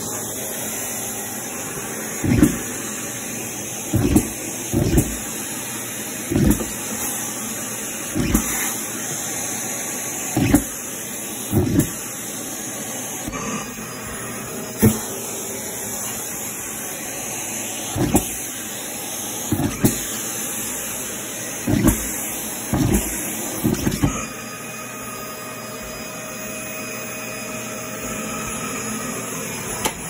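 Prolux Tritan canister vacuum cleaner running with a steady hiss, with about a dozen short, dull thumps at irregular intervals. After about 24 seconds the thumps stop and a faint steady whine comes in.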